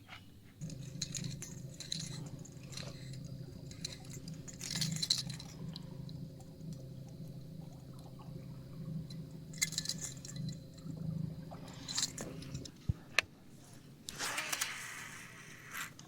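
A small motor hums steadily and stops with a thump about thirteen seconds in. Light metallic clinks and rattles sound throughout, and near the end comes a brief hiss.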